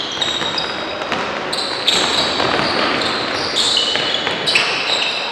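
Basketball game on a hard court: sneakers squeak again and again in short, high chirps, and the ball bounces now and then.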